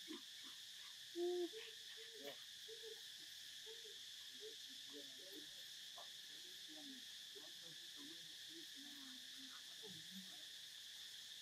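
Steady high-pitched drone of insects, with scattered short, low animal calls throughout; one louder short call about a second in.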